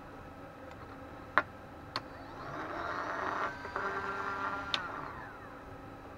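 Two sharp clicks, then a small power-supply cooling fan spins up into a whir, runs for about two seconds and winds down with a falling pitch. It is a test run of the fan while it is being balanced with plasticine weights on its blades, and it is still out of balance.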